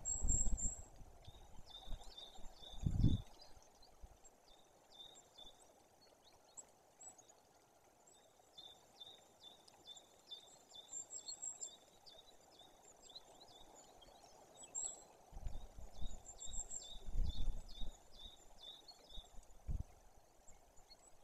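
Small songbirds calling: bouts of short high chirps repeated about four times a second, with a few higher notes above them. Several low rumbles of wind buffeting the microphone come and go, the loudest about three seconds in and again near the end.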